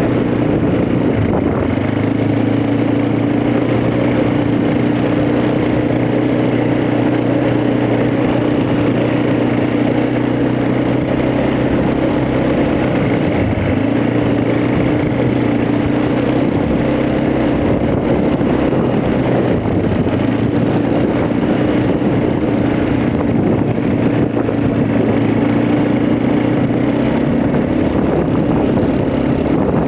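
ATV engine running at a steady, unchanging speed, with a low hum throughout.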